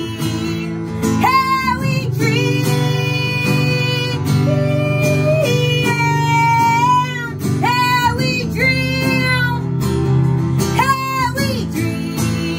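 A woman singing live while accompanying herself on a strummed acoustic guitar. She holds long notes, some sliding up and down in pitch, over steady guitar chords.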